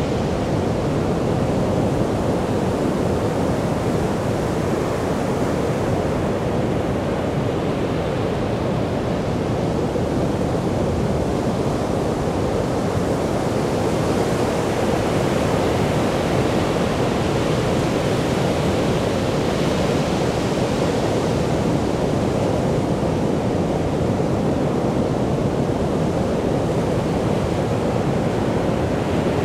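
Caribbean Sea surf breaking and washing up a sandy beach: a steady rushing roar of waves that swells a little now and then as bigger breakers come in.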